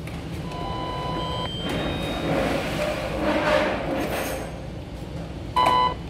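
Timex T618T clock radio's AM band being tuned between stations: static and hiss with faint whistling tones that come and go. A short, loud burst comes near the end.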